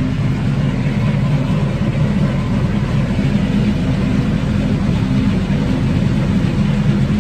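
Vaporetto water bus's engine running steadily as the boat moves along, a constant low hum under an even rushing noise.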